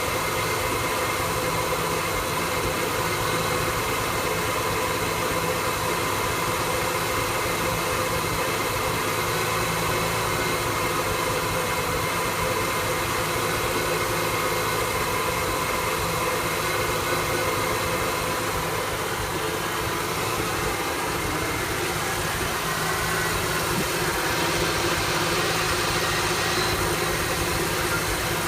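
Engine of a 1974 Ford F-100 converted to electronic fuel injection, idling at an even level: the rough idle that followed the EFI swap.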